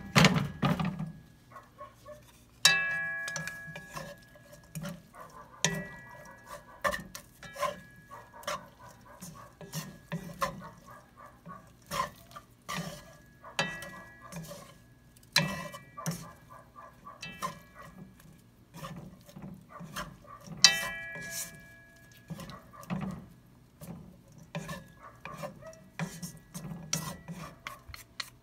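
Wooden utensils scraping and tapping against a nonstick wok as mung bean sprouts are tossed and dry stir-fried without oil, so there is little sizzle. A few sharper knocks, about four, leave the pan ringing briefly.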